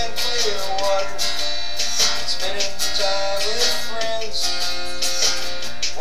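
Background music: a song with strummed acoustic guitar and a melody line over it.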